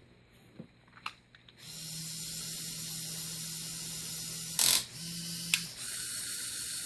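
LEGO Technic electric motors and gear train running off a 9.6 volt drill battery, a steady whirr with a low hum that starts about a second and a half in. There is a loud sharp click about two-thirds of the way through, with a smaller click just after it, where the hum briefly cuts out.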